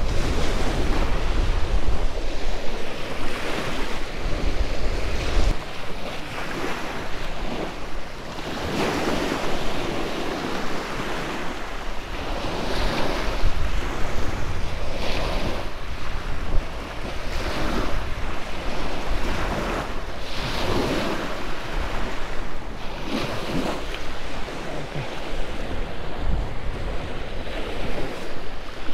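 Small surf washing up the sand in swells every couple of seconds, with wind rumbling on the microphone, heaviest in the first few seconds.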